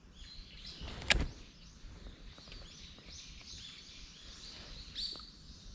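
Birds chirping over and over in short high calls, with one sharp click about a second in and a fainter one near the end.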